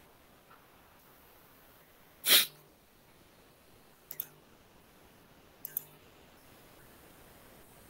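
One short, loud burst of noise about two seconds in, over quiet room tone, followed later by two faint double clicks.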